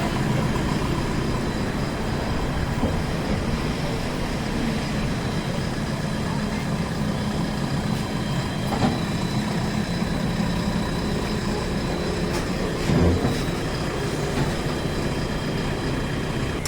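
Diesel engine of a JCB 3DX Super backhoe loader running steadily, with a few short knocks: about three seconds in, about nine seconds in and, loudest, about thirteen seconds in.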